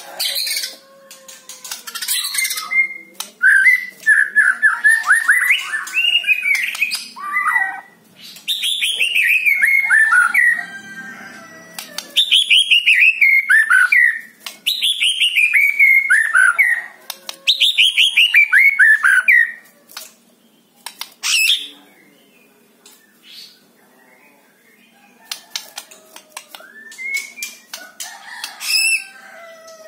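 White-rumped shama singing. A warbling phrase comes first, then four runs of rapid notes, each falling in pitch, with sharp short calls between. After a quieter stretch about two-thirds through, short calls pick up again near the end.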